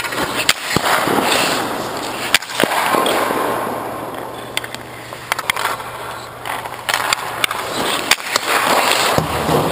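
Hockey goalie's skate blades scraping and carving the ice in repeated pushes across the crease, with his leg pads sliding on the ice during butterfly slides. Sharp clicks and knocks are scattered through the scraping.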